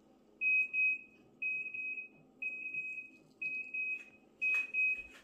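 Electronic alarm beeping: a high single-pitched beep about half a second long, repeating about once a second.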